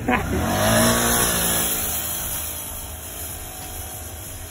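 Four-wheeler ATV engine revving hard and accelerating up a steep sand hill, its pitch rising over the first second, then fading steadily as the quad climbs away.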